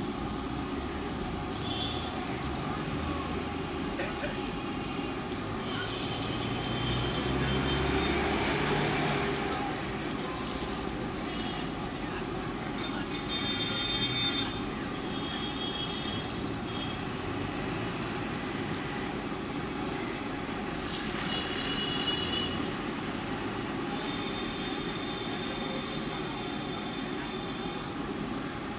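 Medu vadas deep-frying in a large iron kadai of hot oil, a steady sizzle with a brief louder hiss every few seconds as fresh batter is dropped in. A low hum of traffic runs underneath.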